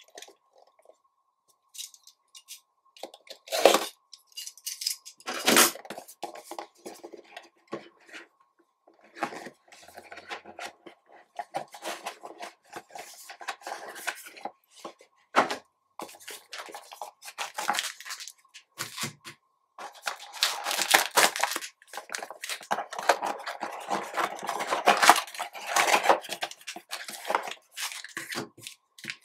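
Handling and opening a cardboard trading-card hobby box: a box cutter slicing the seal, cardboard scraping and knocking as the box and its inner box are opened, with scattered sharp clicks. Near the end comes a dense stretch of crinkling and rustling as foil-wrapped card packs are lifted out.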